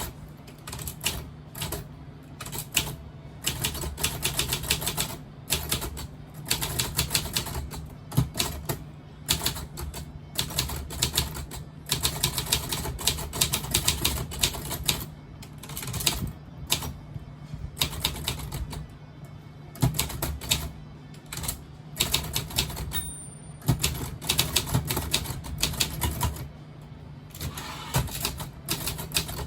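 Predom Łucznik typewriter, a Polish copy of the Facit 1620, being typed on: quick runs of key strikes with short pauses between them.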